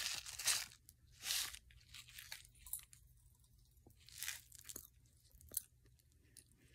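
Candy cane Pop Rocks being eaten: several short crunching, crackling bursts, spaced apart.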